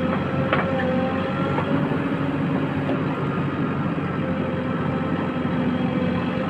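JCB 3DX backhoe loader's diesel engine running steadily with a whine over it, and a few light knocks in the first half.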